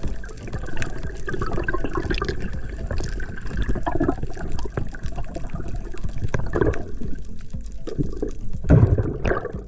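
Water sloshing and bubbling around a skin diver, with many thin irregular clicks and a few louder surges near the end.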